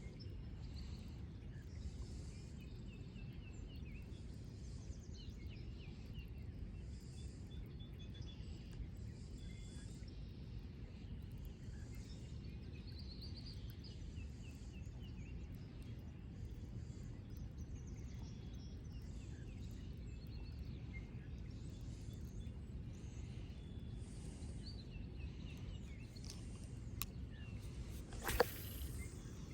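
Small birds chirping on and off over a steady low rumble, with one sharp knock about a second before the end.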